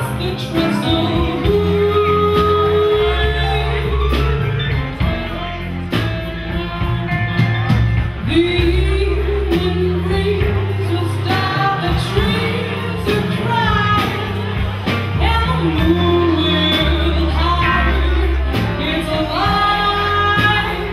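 A woman singing live into a microphone with a band behind her: a sung melody over low notes, drums and cymbals.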